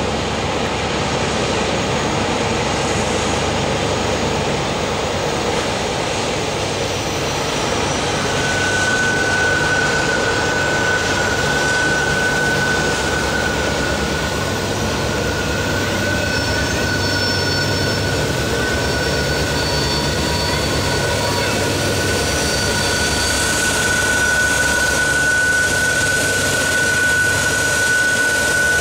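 Norfolk Southern diesel helper locomotives working along the curve, a steady engine drone, joined about eight seconds in by a steady high tone.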